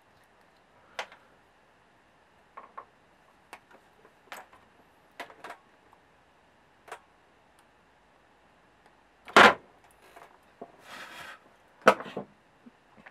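Scattered light clicks and knocks of hands handling a circuit board, loose wires and a pair of cutters on a workbench, with two louder knocks, one about nine seconds in and one near the end, and a brief rustle between them.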